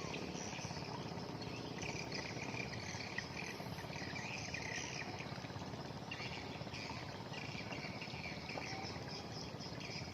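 Insects chirping in uneven bursts of rapid, high-pitched trills, much like crickets, over a steady low background noise.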